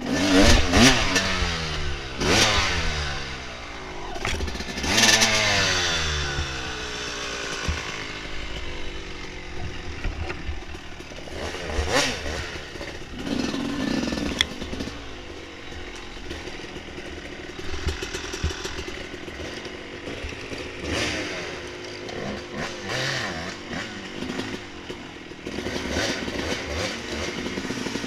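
Dirt bike engine revving hard in repeated bursts as the bike climbs and picks through a rough trail, its pitch falling away after each burst. Knocks and clatter from the bike over rough ground come through between the revs.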